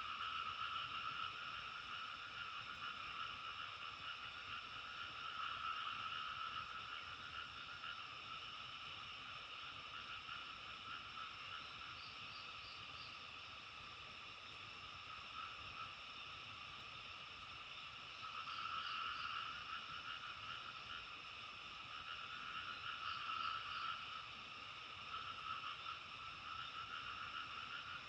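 A chorus of many frogs calling together in a continuous din that swells louder and eases off several times, with a few faint short high pips.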